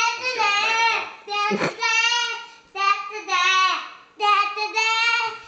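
A young child singing loudly in about four long, high, held phrases with short breaks between them, a made-up rock song.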